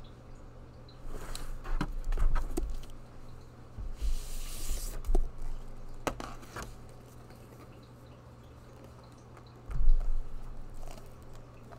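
Glossy paper dust jacket being slid off an oversized hardcover book and handled: rustling and sliding paper with scattered taps and knocks, and a low thump near the end as the book is set down on the table. A steady low electrical hum runs underneath.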